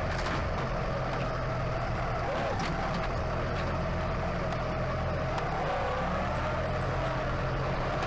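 Compact tractor engine running steadily under load while its front loader pushes into a wooden pigsty, with a higher whine that wavers slightly in pitch and a few faint knocks.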